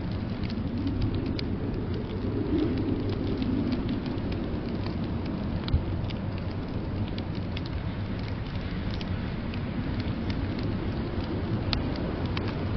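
Wood fire crackling in a fireplace, with many small pops and one louder pop about six seconds in, over a steady low rumble of blizzard wind.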